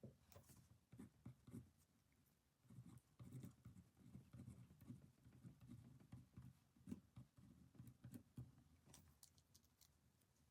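Faint pen-on-paper writing: quiet, irregular scratches and small taps, busier from about three seconds in.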